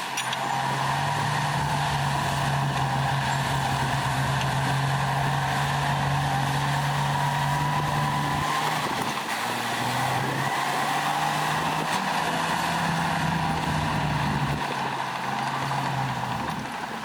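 Heavy diesel engine of earthmoving machinery running under load, with a steady higher whine alongside; the engine note drops away and picks up again about halfway through and once more near the end.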